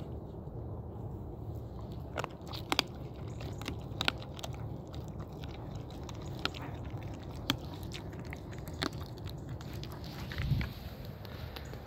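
Dog chewing raw chicken, crunching through the bones, with irregular sharp cracks roughly once a second over a steady low background.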